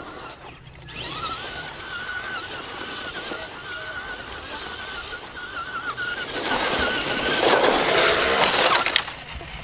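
RC car motor running with a thin, slightly wavering high whine as the car drives. About six and a half seconds in, a louder rushing noise takes over for a couple of seconds, then cuts off.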